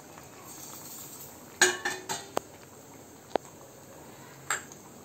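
Coconut-milk prawn curry simmering in a pan with a faint steady hiss. A steel plate clatters against the pan or stove about one and a half seconds in, followed by two sharp ticks and another metallic clink near the end.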